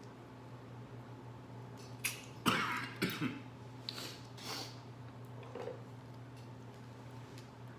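A few short cracks and crunches of crawfish and crab shells being pulled apart by hand, loudest about two and a half to three seconds in, then a few lighter clicks, over a steady low hum.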